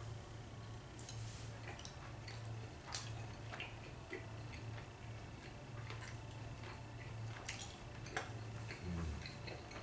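Quiet eating sounds: scattered soft, irregular clicks from chewing steak and from knife and fork, over a steady low hum.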